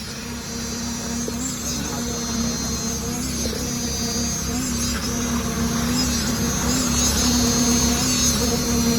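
Machinery engine at a concrete pour running steadily with a constant hum, slowly growing louder, with insects buzzing high above it.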